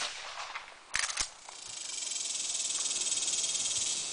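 Two sharp clicks about a second in, then a high, fast-pulsing insect buzz that swells up and holds.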